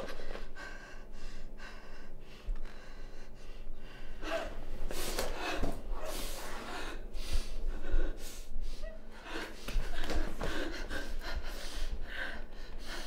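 A girl and a woman breathing hard and gasping, in uneven breaths about once a second.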